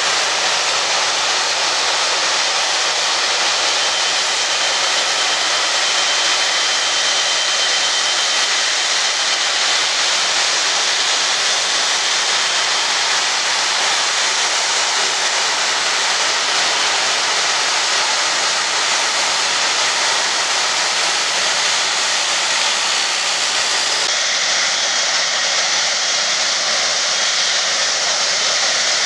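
Boeing 777-300ER's GE90-115B turbofan engines running at taxi power as the jet taxis close by: a steady jet hiss with a faint high whine over part of it.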